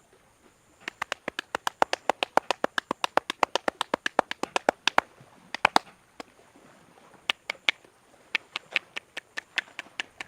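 Rapid percussive hand tapping of a head massage: a barber's hands striking the head in quick sharp claps, about six a second. The run breaks off about halfway through and starts again a couple of seconds later.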